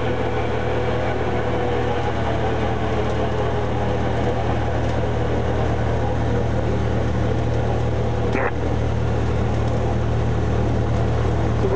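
Cessna 152's four-cylinder Lycoming engine and propeller running steadily at low power during the landing rollout, heard from inside the cockpit. One short click comes about eight and a half seconds in.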